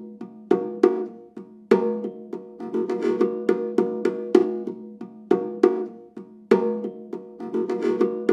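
Bongos played in a quick, uneven rhythm: sharp, ringing drum strokes, roughly two to four a second.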